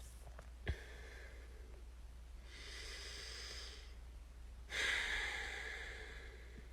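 A person breathing: a soft breath in, then a longer, louder breath out starting about five seconds in that fades away.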